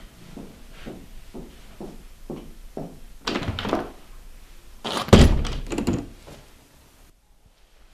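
Light knocks at about two a second, then a door banging shut about five seconds in, the loudest sound.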